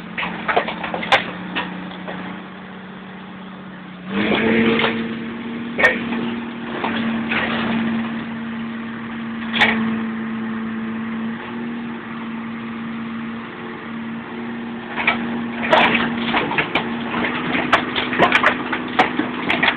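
The engine of a heavy machine with a hydraulic claw, running steadily and picking up speed about four seconds in as the claw works. Over it come scattered sharp cracks and crunches of car bodywork being crushed and torn, coming thick and fast near the end.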